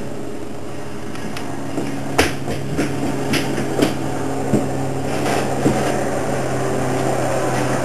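A steady low hum under a scatter of about eight light clicks and taps, spread over a few seconds, from a spoon and dish as a baby is spoon-fed mashed banana.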